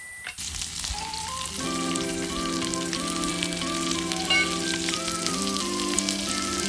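Food sizzling as it cooks over the heat, a steady hiss with fine crackles, with background music coming in about a second and a half in.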